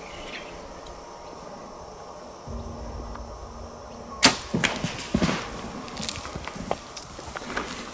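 A bow being shot about four seconds in: one sharp crack of the string release, followed within a second by a few quicker knocks and rustles in the dry grass.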